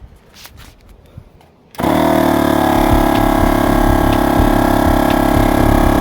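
A few faint clicks, then, about two seconds in, a Dune single-piston portable air compressor starts suddenly and runs loudly and steadily with a fast low pulsing, pumping up a tyre.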